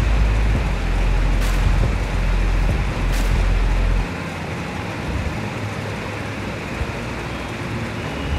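Wind buffeting the microphone: a heavy low rumble over a steady outdoor hiss, the rumble dropping away about four seconds in. Two short clicks come in the first half.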